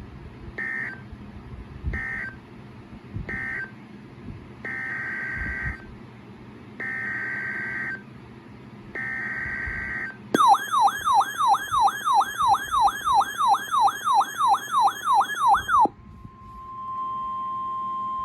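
Emergency Alert System SAME data bursts: three short end-of-message bursts, then three longer header bursts of the screechy two-tone digital code. They are followed by a warbling siren-like alert tone that sweeps up and down about three times a second for several seconds. After that comes a steady single-pitch 1050 Hz weather-radio alert tone.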